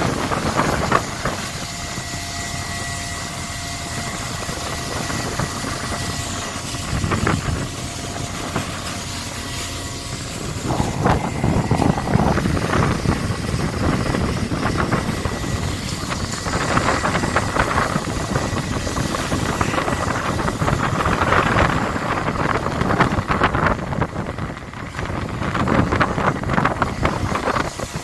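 Fishing boat's engine and deck machinery running steadily, with irregular louder surges of noise over it.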